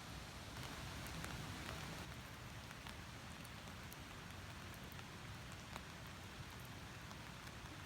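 Light rain falling, with scattered drops ticking over a steady faint hiss.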